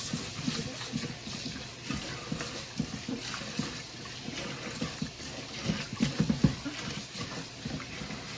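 Rice being washed by hand in a pot of water: irregular swishing and sloshing as the grains are stirred to rinse out the starch, busiest about six seconds in.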